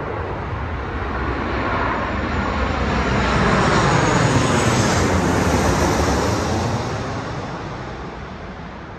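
An airliner passing overhead. Its engine noise swells to a peak about four to five seconds in, then fades away.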